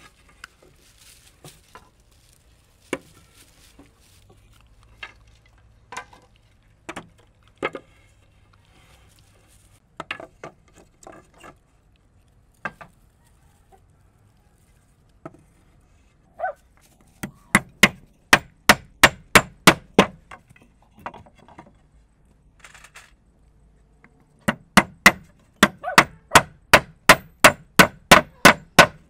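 Hammer driving nails into wooden boards: two runs of quick, even blows, about four to five a second, one past the middle and one near the end. Before them come scattered single knocks of wood.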